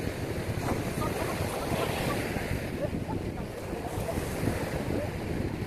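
Ocean surf breaking steadily on the beach, with wind buffeting the microphone.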